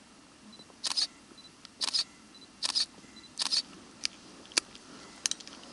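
Camera shutter firing about six times, roughly once a second, each shot a short, sharp click.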